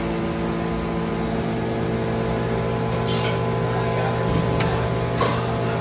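Berkel chamber vacuum sealer's pump running with a steady low hum as it draws the air out of a bagged ribeye in the closed chamber.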